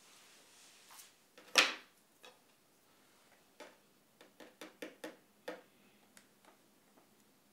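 Light clicks and taps of fly-tying tools and materials being handled on a wooden bench: one sharper knock about a second and a half in, then a quick run of about seven taps over the next two seconds.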